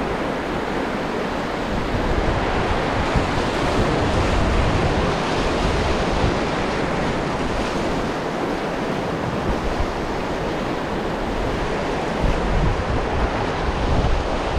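River whitewater rushing and splashing steadily around an inflatable raft running a rapid, with a low rumble underneath.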